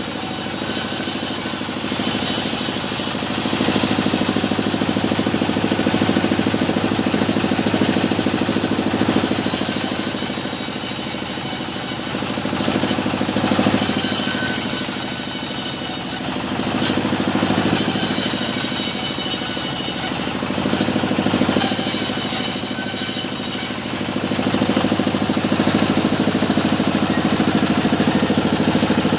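Band sawmill running steadily, its drive making an even low hum. A loud hiss comes and goes several times as the blade cuts through mahogany.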